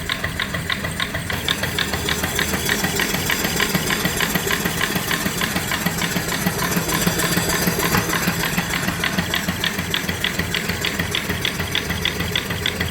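Antique-style single-cylinder steam engine (3-inch bore, 4-inch stroke) running under steam from its vertical boiler, its exhaust going chuck, chuck, chuck up the stack in even beats, about six a second, over a steady low hum.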